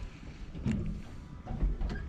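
Wind rumbling on the microphone over a small boat on choppy open water, with two light knocks, about a second apart.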